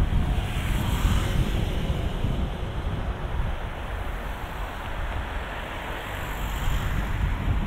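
Wind buffeting the microphone, a gusty low rumble. A fainter rush of passing street traffic rises about a second in and again near the end.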